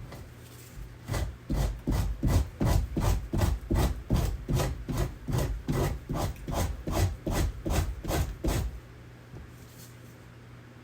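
Quick, even rasping strokes, about three a second, starting about a second in and stopping after some seven and a half seconds.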